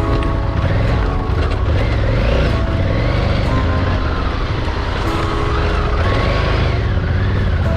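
Honda Africa Twin motorcycle's parallel-twin engine running under load off-road, its pitch rising and falling as the throttle is worked.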